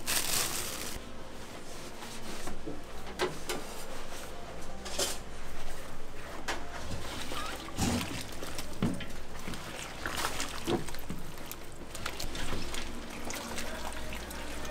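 Gloved hands tossing boiled chicken feet with chili powder in a large steel bowl: wet squelching and irregular knocks of the feet against the bowl.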